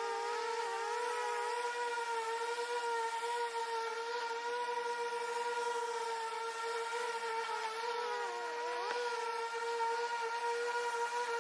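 Ryobi 48V 38-inch battery riding lawn mower running while mowing: a steady electric motor whine, with a second, weaker tone that wavers, dipping in pitch and climbing back about eight to nine seconds in.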